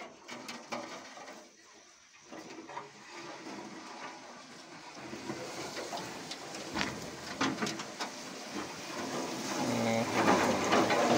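Reed stems rustling and scraping against a small boat's hull and the camera as it pushes through a dense reed bed, many small clicks and swishes that grow louder near the end.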